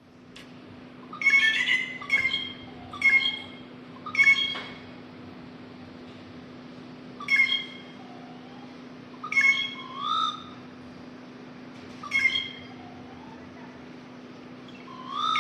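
A bird giving short, harsh squawking calls, sometimes two in quick succession, about nine in all with gaps of one to three seconds, over a steady low hum.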